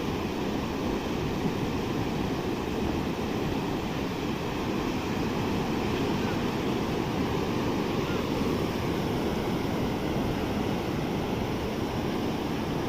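Sea surf washing onto a beach, a steady rushing noise without any single standout crash.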